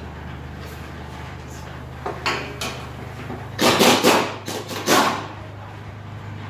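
Clattering metal knocks, a short burst about two seconds in and a louder run of bangs about four to five seconds in, over a steady low machine hum.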